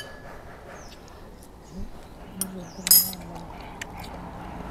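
Metal spoons clinking against ceramic bowls and glasses at a dining table: a few light, sharp clinks, the loudest about three seconds in. A short low hum of a voice runs through the middle.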